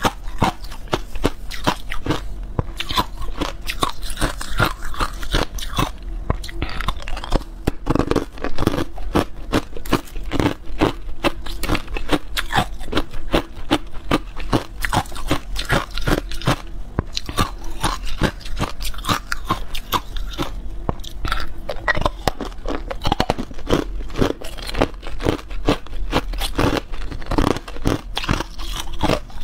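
Clear ice cubes being bitten and crunched between the teeth, picked up close by a clip-on microphone: a rapid, continuous run of sharp cracks.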